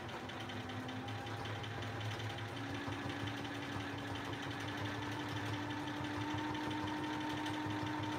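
Home sewing machine stitching continuously during free-motion quilting, its motor running at a steady speed while the fabric is guided by hand under a darning foot. The motor's hum steps up slightly in pitch a couple of seconds in.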